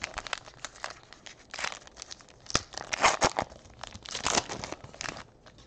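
Foil trading card pack wrapper being torn open and crinkled by hand: a run of crackles with three louder rips spread through.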